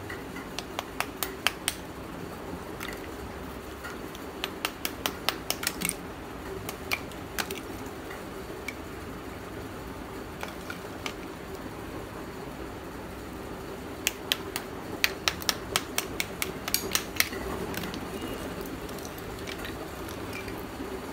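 Hard, brittle slabs of roasted multani mitti (fuller's earth clay) clicking and clattering against each other as gloved hands shift them and break off layers. The sharp clicks come in three clusters: near the start, around five seconds in, and from about fourteen to seventeen seconds, over a steady low hum.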